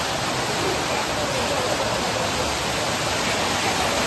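Steady rushing of water pouring from a chute onto a wooden water wheel.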